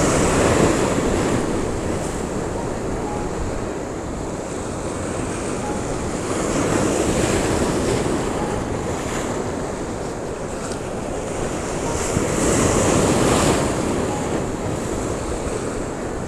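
Surf breaking against the rocks of a jetty, a steady rush that swells louder three times as waves crash, with wind buffeting the microphone.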